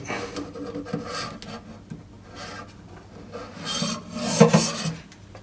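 A new rubber O-ring being worked onto the metal swivel spout of a kitchen mixer tap, scraping and rubbing against the metal as a small flat-bladed screwdriver eases it into place. The scraping comes in two spells, a short one at the start and a louder one about four seconds in.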